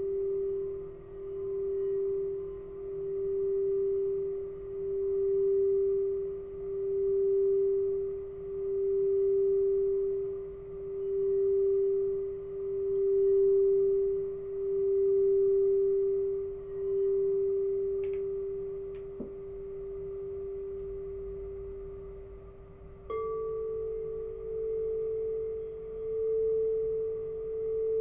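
Crystal singing bowls sounding one at a time. The first bowl, rubbed around the rim with a mallet, sings one steady tone that swells and fades in slow waves about every second and a half to two seconds, then dies away. About four-fifths of the way in, a slightly higher-pitched bowl is struck and rings on.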